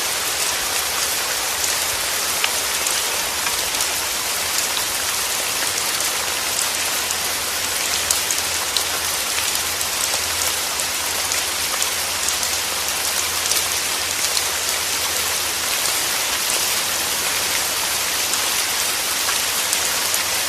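Steady rain falling, a dense even hiss with many small drop ticks throughout.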